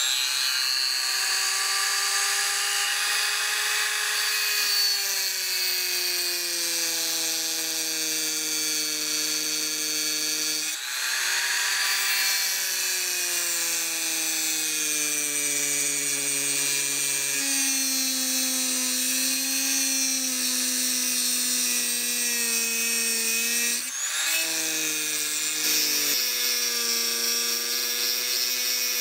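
Rotary tool with a thin abrasive cut-off disc cutting a small carbide plate held in a vise: a steady high motor whine whose pitch drifts lower as the disc bites into the hard metal. Twice, about eleven seconds in and again near the end, the whine breaks briefly and then picks up again.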